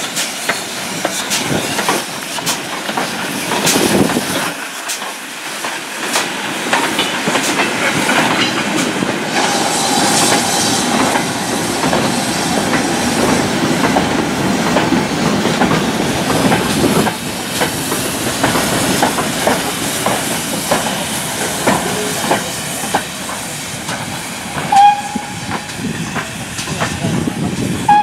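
GWR 5101 class 2-6-2T tank engine No. 4110 hauling a short goods train of wagons past, with steam hissing and the wheels clicking and clanking over the rail joints in a continuous rattling rumble. Two brief, loud high-pitched notes sound near the end.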